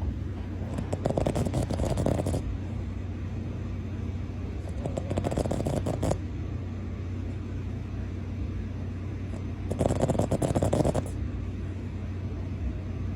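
Boston Terrier snoring: three fluttering snores, each just over a second long, about four to five seconds apart, with the breathing rhythm.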